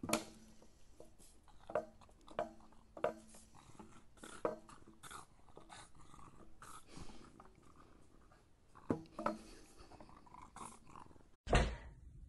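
A small dog grunting and growling in short bursts while carrying a stick, with scattered knocks as the stick bumps against a metal gate. A louder thump near the end.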